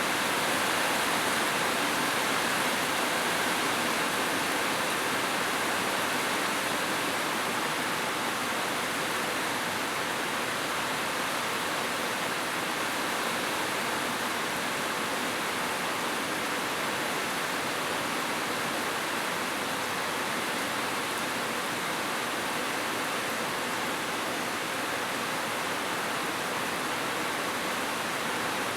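Steady rushing of flowing water, an even hiss without breaks or separate splashes.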